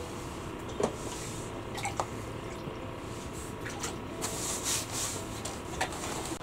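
A small yellow perch being handled, unhooked and let back into the ice-fishing hole: scattered light clicks and knocks, rubbing, and dripping water, with a short burst of hiss about four and a half seconds in.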